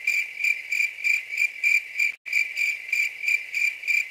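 Crickets chirping: a steady, high, even train of short chirps, about five a second, with a brief break about two seconds in.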